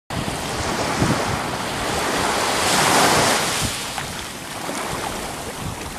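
Small waves washing up a sandy beach, the surge swelling to its loudest about halfway through and then easing, with wind buffeting the microphone.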